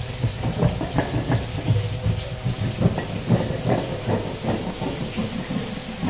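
Hand-pushed steel multi-disc cutter roller rolled across a slab of peanut and jaggery chikki to score it into bars, clattering with many irregular knocks over a steady hum.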